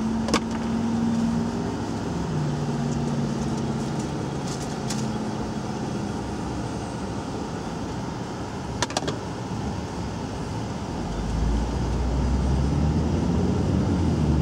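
Car cabin noise from a moving car: a steady engine and road hum, with a few short clicks. The low rumble grows louder about eleven seconds in.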